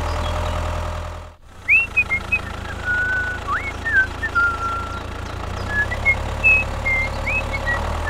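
Steady low engine hum, as of a tractor running, broken briefly about a second and a half in. Over it comes a string of short, bird-like whistled chirps, some gliding up in pitch.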